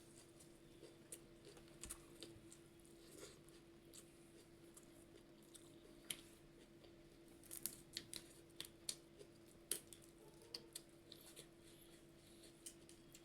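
Faint eating sounds: scattered sharp mouth clicks and soft chewing, busiest about halfway through, over a steady low hum.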